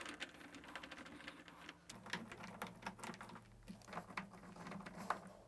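Light, irregular clicking and scraping of a 7mm socket driver turning screws into a tumble dryer's plastic front housing.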